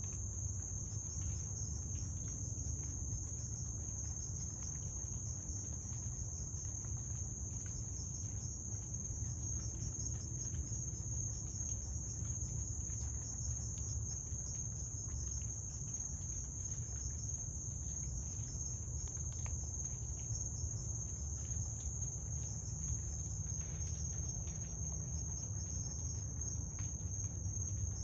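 Crickets trilling in a steady, high-pitched night chorus, with a low rumble underneath.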